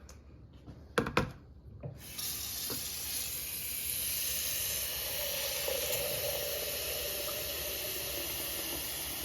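Two sharp clicks about a second in, then a kitchen tap running steadily from about two seconds in, filling a SMEG mini electric kettle with water.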